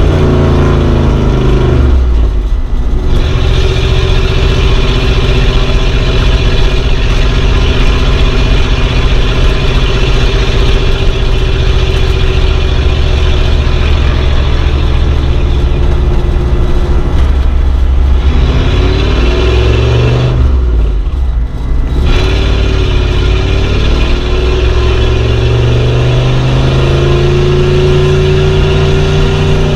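Old car engine running while driving. Its pitch falls and the sound briefly eases about two seconds in and again around twenty seconds, then the revs climb steadily again.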